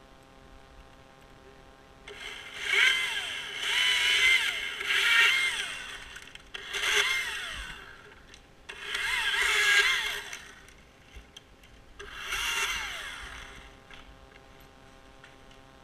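Husqvarna chainsaw idling, then revved in four bursts as it cuts pine limbs, its pitch sagging as each burst ends.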